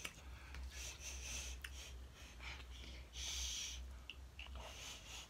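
Close-up eating sounds of seafood boil: short airy sucking and slurping bursts with small mouth clicks, the longest about three seconds in, over a low steady hum.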